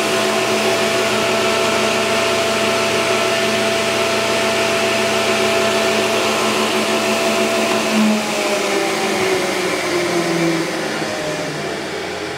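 Powermatic 66 cabinet table saw running freely with no cut, a steady motor-and-blade drone; it is running smoothly. Its tone shifts slightly and it gets a little quieter after about eight seconds.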